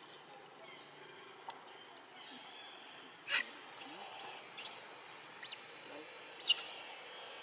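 Monkey giving about six short, shrill squeaks over three seconds, starting near the middle, with the first and last the loudest.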